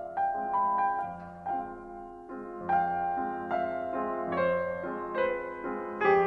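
Piano music: notes struck one after another, each left ringing under the next.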